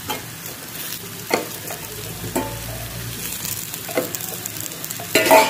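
Metal spoon scraping and knocking against a metal kadhai while boiled potato chunks are stirred into a frying onion-and-spice masala, over a steady sizzle. About five separate knocks, the loudest near the end with a brief metallic ring.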